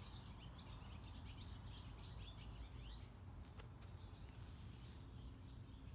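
Faint woodland ambience: small birds chirping repeatedly, most densely in the first few seconds, over a low rumble, with one small click a little past halfway.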